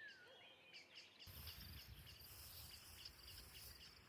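Faint outdoor ambience of birds and insects: a few short rising and falling whistled calls near the start over a steady run of high chirps, about four a second. A low rushing noise comes in just after a second in.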